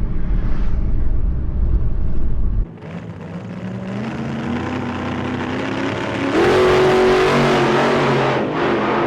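Car engine accelerating, heard from inside the car: its pitch climbs steadily and then steps up louder for a couple of seconds before easing off. A heavy low road or wind rumble fills the first couple of seconds and cuts off abruptly.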